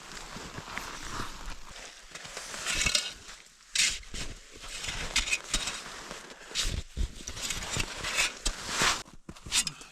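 Collapsible snow shovel digging into packed snow: irregular strokes of scraping and crunching, with a few sharper knocks as the blade bites in.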